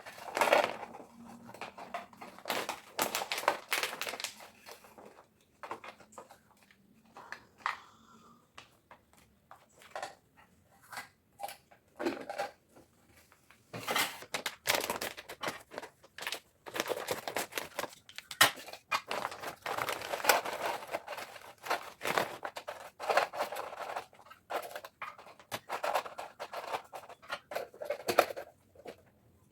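Close handling of packaging and household items: plastic crinkling and rustling, with scattered clicks and knocks.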